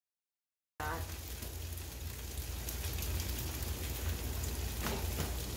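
Food sizzling on a hot flat-top griddle: an even crackling hiss with scattered small pops over a low steady hum. It starts abruptly under a second in.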